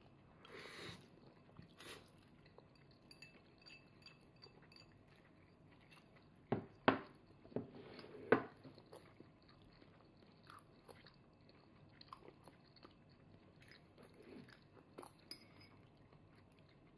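A toddler chewing and eating with small, quiet mouth sounds. A few sharper clicks come together a little past the middle.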